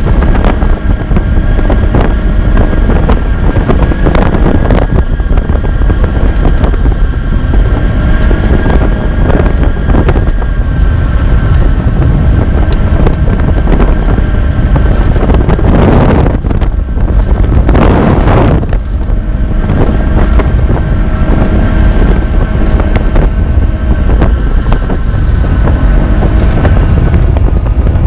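Aeros 2 microlight aircraft's engine and propeller droning steadily in flight, with heavy wind buffeting on the microphone; the drone wavers slightly in pitch a few times, and two louder rushes of wind come past the middle.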